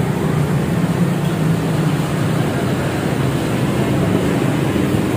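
Steady low rumbling background noise, even throughout with no distinct events.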